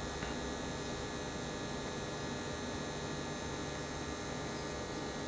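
Steady mains hum with a faint hiss underneath: the electrical room tone of a workshop full of running electronics.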